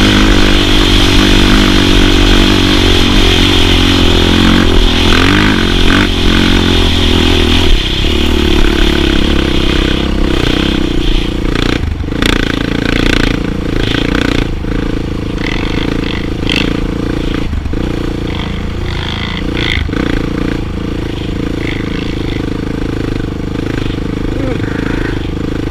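Suzuki sport quad's single-cylinder four-stroke engine running under throttle while riding, heard from the rider's helmet. About eight seconds in the engine note drops and it runs lower and quieter, with a few sharp knocks and rattles over the following stretch.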